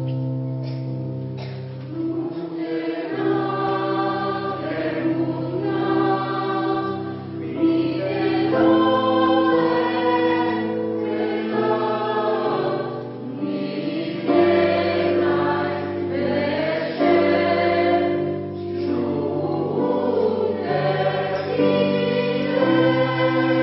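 Polyphonic choir singing in several parts, holding long chords that shift every second or two.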